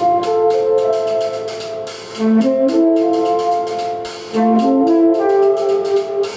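Live jazz-electronic improvisation: saxophone with keyboard and laptop electronics, a short rising run of notes coming round about every two seconds under held tones, over a steady clicking beat.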